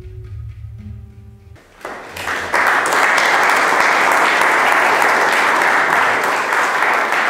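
Singing bowls ringing in steady tones over a low hum, cut off about a second and a half in. Then an audience starts applauding, building within a second to loud, steady clapping.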